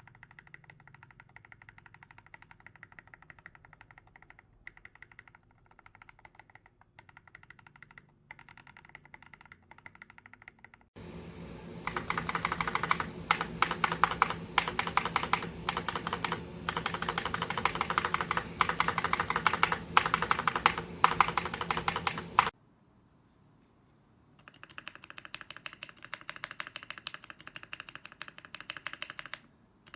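Mechanical keyboard typing: rapid continuous key presses. A quieter stretch gives way about eleven seconds in to much louder typing, which cuts off suddenly about halfway through; after a short pause the typing resumes at a middling level.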